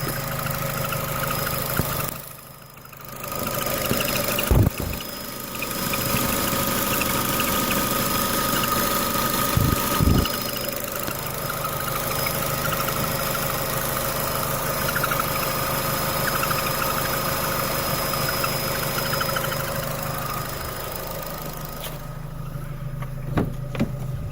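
Opel Astra 1.4 turbo engine running, with a steady high-pitched whistling squeak coming from under the bonnet; its cause is unknown to the owner. The whistle fades out near the end, while the engine hum carries on, and a few sharp knocks come through early on.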